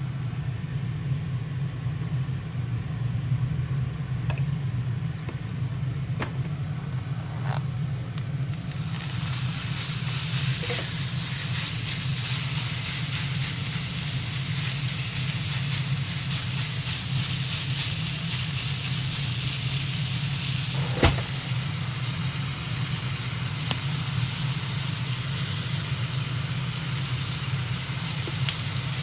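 Ground beef and pork frying in a pan, the sizzle starting about eight seconds in and running steadily over a constant low hum. A few light clicks come before the sizzle, and a sharp utensil knock about 21 seconds in.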